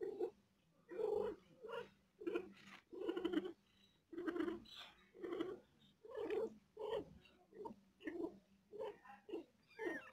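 A mother cat in labour giving a steady series of short, low, voiced moans, a little under two a second, the sound of a cat in pain while giving birth.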